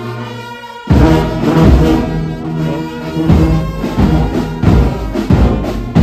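Brass band playing: a held chord fades out, then about a second in the full band comes in loudly with brass chords over regular bass drum beats.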